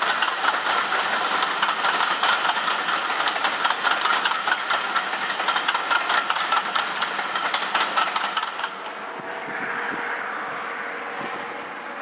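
A train of railway passenger coaches rolling past, its wheels rattling and clicking rapidly over the rails. About three-quarters of the way through the sound drops abruptly to a quieter, steady distant hum.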